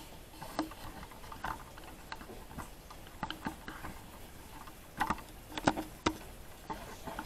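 Faint scattered clicks and light taps, a few louder ones about five to six seconds in.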